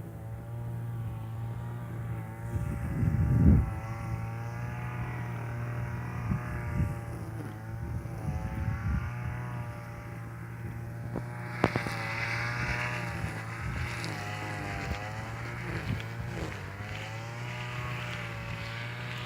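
An engine running, its pitch wavering up and down, with a louder low rumble about three and a half seconds in.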